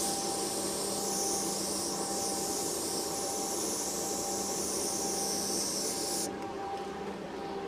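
Compressed-air blower hissing steadily, with a steady hum under it, as it blows air over wet basecoat to dry it before clear coat. The hiss cuts off suddenly about six seconds in.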